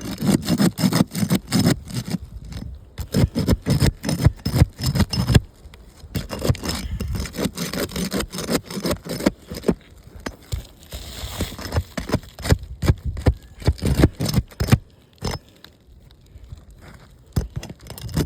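A tool scraping and prying under a brittle asphalt shingle to break it loose from its sealant bond, in many irregular scraping strokes with some crackle, easing off near the end. The shingle is brittle and tearing as it comes up, with heavy mat transfer.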